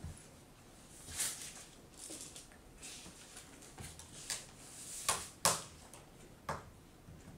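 Scattered small clicks, taps and brief rustles of laptop parts being handled during a screen replacement, the loudest click about five and a half seconds in.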